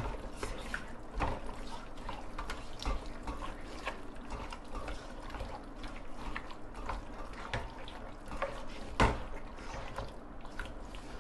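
Wet squelching and smacking of gloved hands kneading chicken pieces through a thick yogurt-and-spice marinade in a pot, as a run of irregular small squishes, with one sharper knock about nine seconds in.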